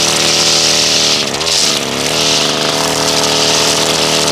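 Gas-powered string trimmer running at high throttle, its line whipping through grass with a steady hiss over the engine note. About a second in, the engine speed dips briefly and then picks back up.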